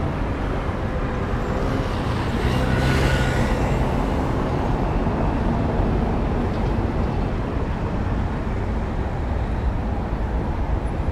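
Steady road traffic noise, swelling as a vehicle passes about two to four seconds in.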